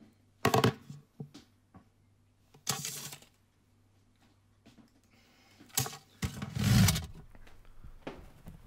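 Objects being handled at a kitchen counter: a sharp knock, a few small clicks, a short rustling burst, then a longer, louder noise with a low rumble about six to seven seconds in.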